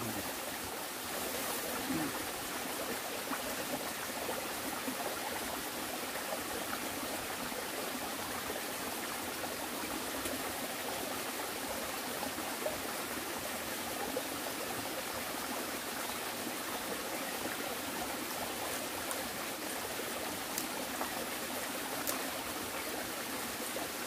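Small mountain stream running over mossy rocks, a steady rushing trickle of water.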